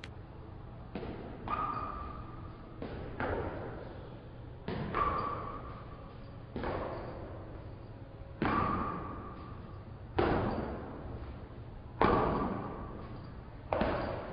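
Footfalls of two runners doing B-skips on a hard floor: a series of thuds, each trailing off in the room's echo, the louder landings about two seconds apart with softer ones between.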